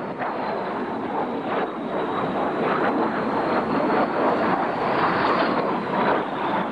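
Jet aircraft in flight: a steady rush of engine and air noise with a faint, high, steady whine over it.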